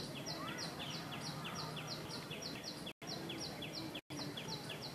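Steady, evenly repeated high chirping, about three or four short chirps a second, over outdoor background noise. The audio cuts out for a moment twice, about three and four seconds in.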